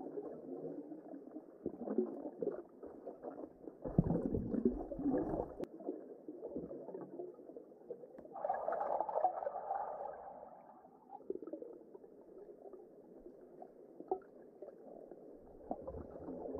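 River water heard underwater through a GoPro Hero 6 resting on the river bed: a muffled, irregular gurgling with scattered faint clicks. It swells louder twice, with a low rumble about four seconds in and a brighter surge for about two seconds around halfway.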